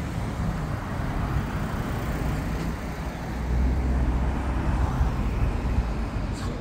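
City street traffic with a vehicle's low engine rumble that grows louder a little over three seconds in.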